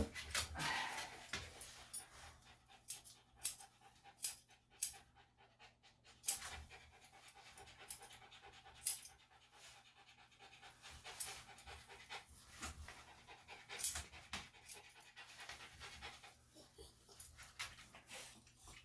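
Senior Bichon–Shih Tzu cross panting, with irregular sharp clicks from the grooming work scattered through.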